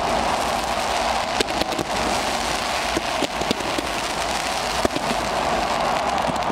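Fireworks crackling steadily, with a handful of sharper pops scattered through.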